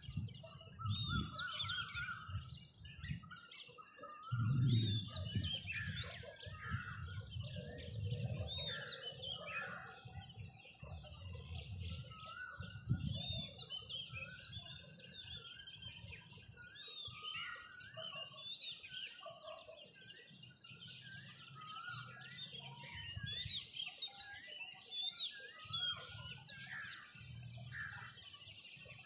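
Many small birds chirping and twittering at once in a morning chorus, over a low, uneven rumble.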